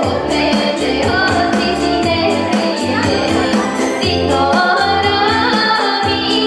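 Bulgarian folk dance music: voices singing a folk song over instrumental accompaniment with a steady, quick beat.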